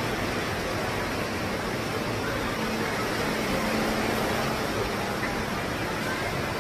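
Steady rushing wind noise, an even hiss with no breaks.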